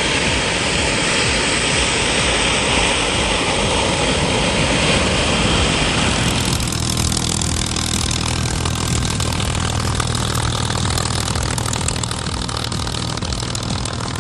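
A jet aircraft's engine running as it taxis, a steady hissing whine, giving way about six and a half seconds in to the deep, steady drone of a P-51 Mustang's V-12 piston engine turning its propeller while taxiing.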